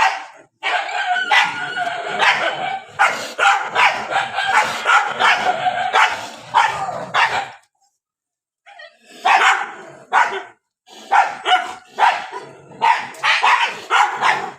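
Several dogs barking and yelping in a dense, overlapping volley, breaking off for about a second midway, then barking again in separate, rapid barks.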